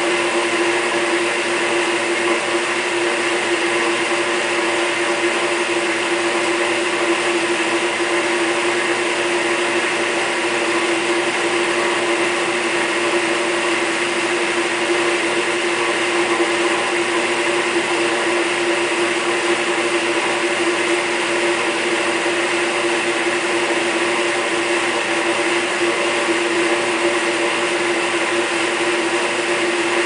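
1949 GE RA-949 portable dishwasher running: a steady motor hum over a constant whoosh, unchanging throughout.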